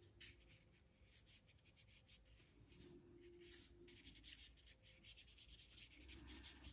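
Faint, scratchy strokes of a paintbrush rubbing over watercolour paper, repeated many times.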